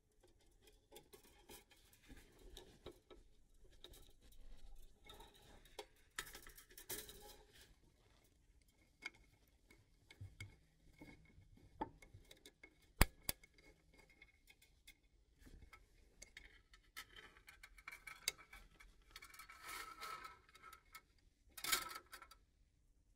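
Scattered clicks, clinks and short rustles of hand tools and small metal parts being handled during brake-pipe work, with one sharp click about halfway through.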